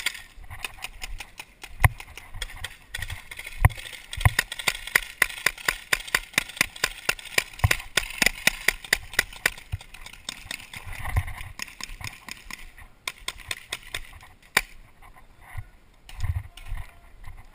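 Paintball markers firing rapid shots, sharp cracks several a second, thinning out near the end, with a couple of dull thumps.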